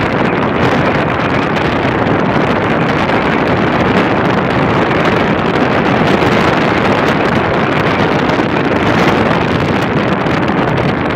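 Steady, loud rush of wind and road noise in a moving car's cabin, with the wind blowing on the microphone.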